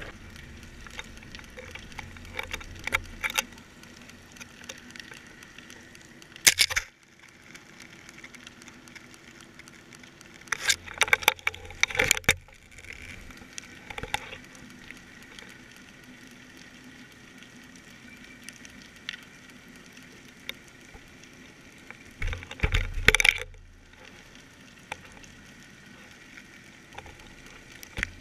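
Underwater recording through a GoPro's waterproof housing: clusters of sharp clicks and crackles, three or four times, over a low steady background.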